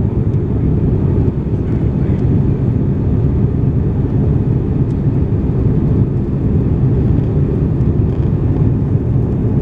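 Airliner engines and airflow heard from inside the passenger cabin during the climb after takeoff: a steady, loud, low rumbling roar with no change in level.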